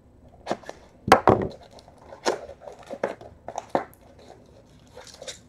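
A sealed box-style trading-card pack being torn and pried open by hand: irregular clicks, scrapes and crinkles of wrapper and cardboard, the sharpest snap a little over a second in.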